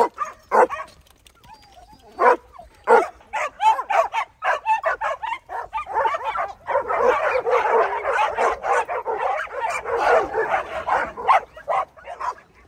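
A pack of dogs barking in excitement. Single barks come a few at a time at first; from about six seconds in, many dogs bark at once in a dense din for several seconds, then it thins back to separate barks near the end.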